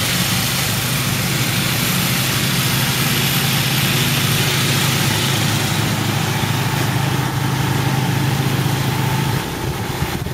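Vehicle engine idling steadily, a low hum that eases off slightly about nine and a half seconds in.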